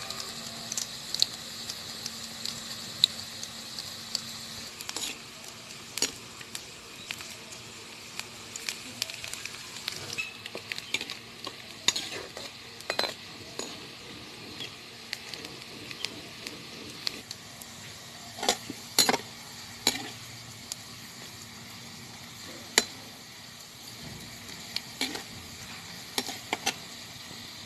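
Chopped onion frying in hot oil in a kadai, sizzling steadily while being browned. A spatula stirs it, with frequent sharp clicks of metal against the pan.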